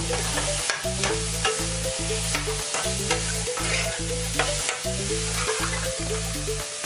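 Chopped vegetables sizzling in a frying pan while a metal spoon stirs them, with frequent scraping clicks against the pan. Background music with a steady beat plays underneath.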